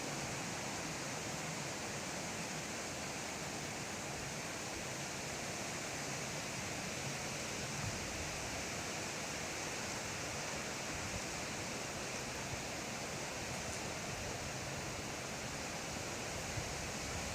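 Steady, even background hiss with no distinct sounds standing out.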